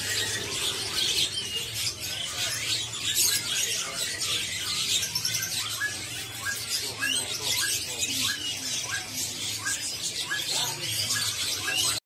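Many caged songbirds chirping together in a bird-market kiosk, a dense high chatter with one bird repeating a short call about twice a second through the middle, over a steady low hum.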